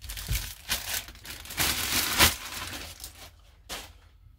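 Clear plastic bag crinkling and rustling as plastic model kit parts on their sprues are pulled out of it, loudest about two seconds in and dying down near the end.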